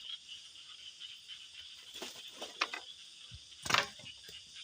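Night insects chirring steadily in a high continuous band, with a few short knocks or clatters; the loudest comes nearly four seconds in.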